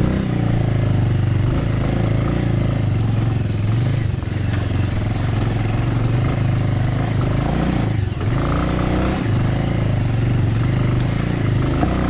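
Bajaj Avenger motorcycle's single-cylinder engine running under load as the bike climbs a rough dirt track. The engine note dips briefly about eight seconds in, then picks up again.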